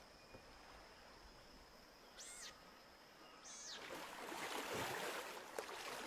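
Water splashing and rushing, faint at first and growing louder over the second half, with two short high arching calls, one a little over two seconds in and another about a second later.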